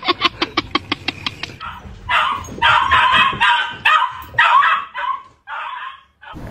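Dog barking in a fast run of short, pitched yips, about six or seven a second, which stops about a second and a half in. Several longer, rougher, noisy sounds follow.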